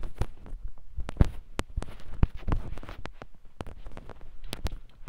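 Footsteps and handling noise from a hand-held phone being carried across a room: irregular low thumps and sharp clicks.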